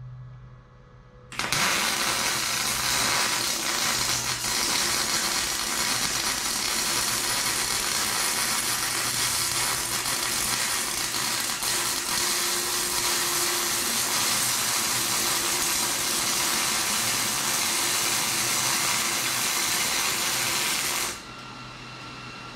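MIG wire-feed welder arc on a steel rear axle beam, starting about a second in, running steadily for about twenty seconds, then cutting off near the end. The start of the arc sounded a little weird, which the welder puts down to a contact tip that may be due for replacement.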